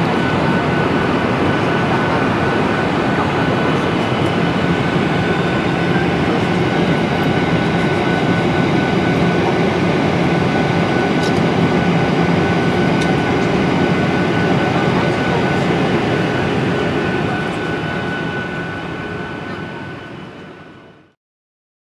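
Cabin noise inside a Ryanair Boeing 737-800 in flight: a steady rush of engine and airflow noise with a thin, steady high tone over it, fading out near the end.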